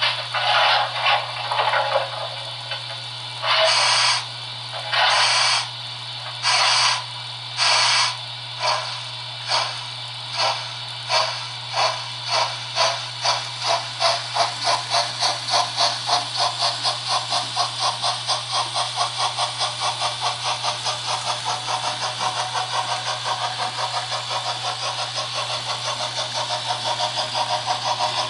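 Model steam locomotive's sound decoder chuffing as the engine pulls away and gathers speed. A few long, hissing chuffs come well apart at first, then the beats grow shorter and quicker until they run at several a second.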